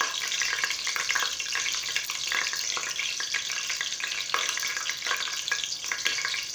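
Hot sunflower oil sizzling with cinnamon sticks and cloves in a stainless steel pot: a steady frying hiss with many small crackles and pops, caused by water in the oil.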